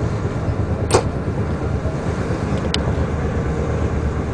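DB class 648 LINT diesel railcar running along snow-covered track, heard in the cab: a steady low rumble of engine and wheels, with a sharp knock about a second in and a fainter click near three seconds.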